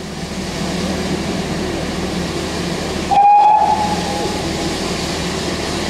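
GWR steam tank locomotive at a standstill, a steady rumble and hiss, with one short blast on its whistle about three seconds in. The whistle is a single note, falling slightly, and is the loudest sound.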